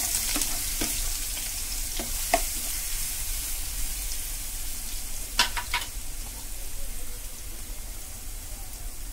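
Garlic paste sizzling in hot oil in a kadhai while a steel ladle stirs it, with a few sharp clinks of the ladle against the pan about two seconds in and again just past five seconds.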